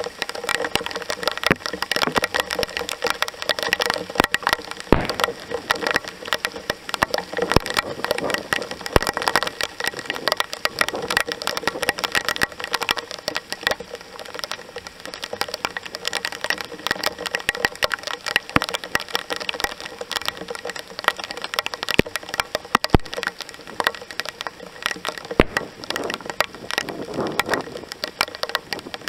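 Heavy rain pouring down, a dense, steady crackle of drops striking nearby surfaces, with a few sharper single drop hits standing out.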